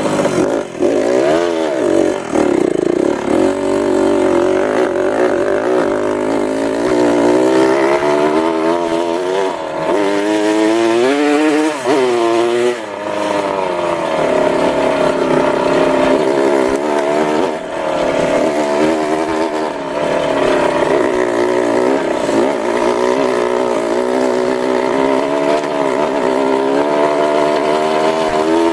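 Dirt bike engine running as it is ridden, its revs rising and falling again and again with the throttle, with a strong climb and drop about ten to thirteen seconds in.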